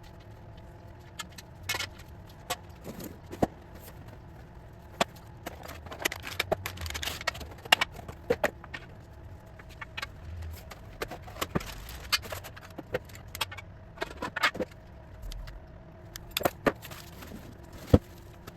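Unpacking of roof rack parts: irregular sharp clinks and knocks of metal pieces and hardware, with spells of rustling packaging.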